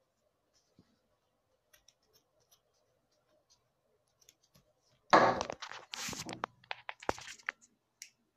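Keldeo plush toy's fabric and stuffing being ripped apart: a loud burst of tearing and rustling about five seconds in, lasting about three seconds with a few sharp snaps, after only faint scattered clicks.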